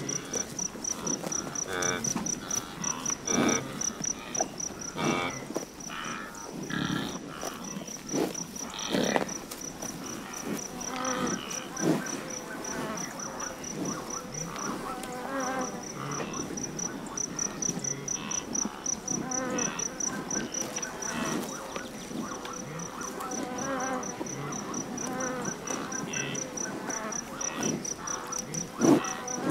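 An insect chirping in a high, even pulse at about five a second, stopping for about a second midway and then going on, over irregular rustling and knocking.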